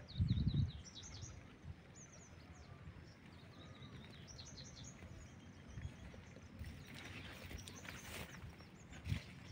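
Small birds chirping and twittering in open country, with many short high calls. A low rumbling thump on the microphone comes in the first half second and again near the end, and a brief rush of hiss comes about seven to eight seconds in.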